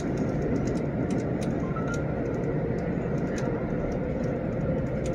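Steady rumble of an Amtrak San Joaquins passenger car in motion, heard from inside the car, with scattered faint clicks and rattles.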